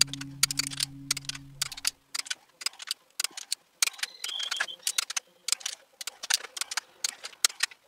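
Ratchet wrench clicking in quick, irregular runs as cylinder head nuts are tightened down, with background music fading out in the first two seconds.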